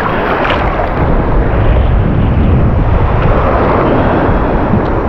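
Surf waves sloshing and washing around a wading angler, with wind buffeting the microphone: a loud, steady rush with a deep rumble underneath.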